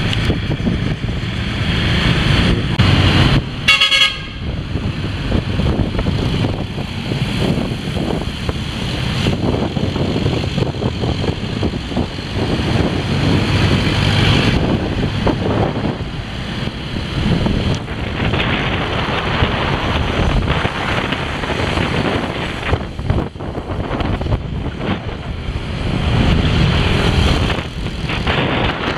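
Riding a motorbike through city traffic: a steady rumble of engines and wind on the microphone, with a vehicle horn honking once, briefly, about four seconds in.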